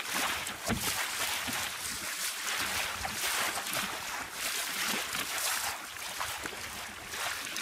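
Water rushing and splashing along the hull of a small wooden sailing dinghy running fast downwind, with some wind, rising and falling in surges.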